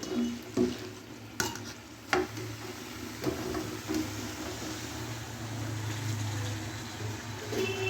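Chicken masala sizzling in a frying pan while a spoon stirs it, with a few sharp knocks of the spoon against the pan, the loudest about one and a half and two seconds in.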